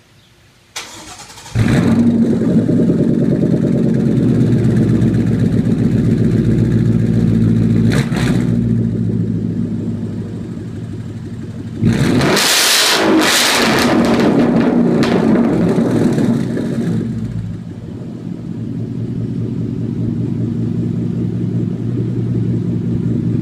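2014 Mustang GT/CS's 5.0-litre V8, breathing through a Magnaflow Competition cat-back exhaust, cranks and starts about a second and a half in, then runs at a fast idle. Around the middle it is revved, its pitch rising and falling, and it settles back to a steady idle.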